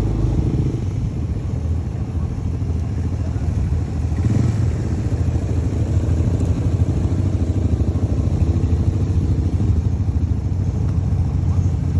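ATV engines running as quad bikes drive past close by, a steady low engine note with a fast flutter.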